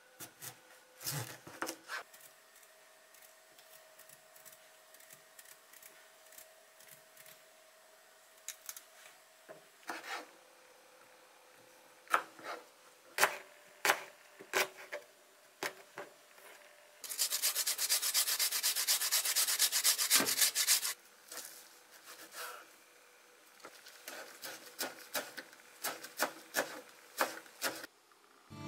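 Kitchen knife cutting daikon radish into thin strips on a cutting board: separate crisp cuts and taps, then about four seconds of rapid, evenly paced chopping, then more single cuts.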